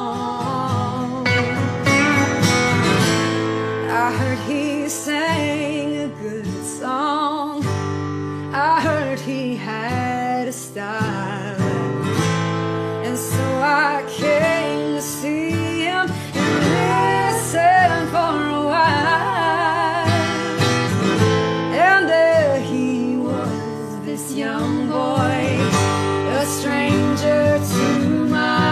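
Background music: a sung song with acoustic guitar accompaniment, the voice holding and sliding through wavering notes.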